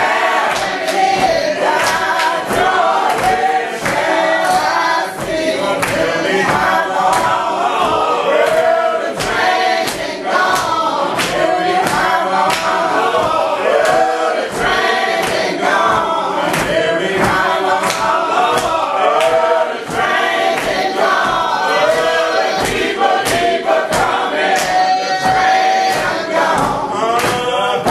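Church congregation singing a gospel song together in full voice, with sharp regular beats like hand claps keeping time.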